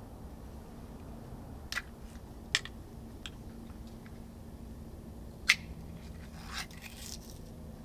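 Ring-pull sardine tin being opened by hand: several sharp metallic clicks, the loudest about five and a half seconds in, then a short scraping rustle near the end.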